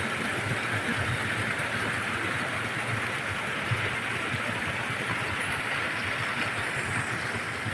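Rushing water of a stream and waterfall, a steady, even rush.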